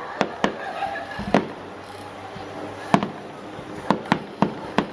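Aerial firework shells bursting as a string of sharp bangs, about eight in five seconds, with several coming in quick succession near the end.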